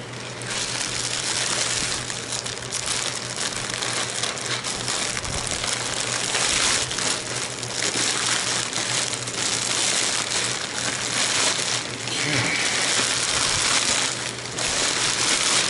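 Plastic poly mailer bag crinkling and rustling continuously as it is handled and opened by hand.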